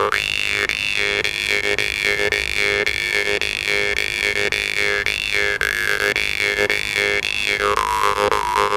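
Glazyrin "Mayak" jaw harp played with fast, even plucking: a steady drone whose overtones sweep up and down as the mouth shape changes. Near the end the overtone drops and holds on a lower note.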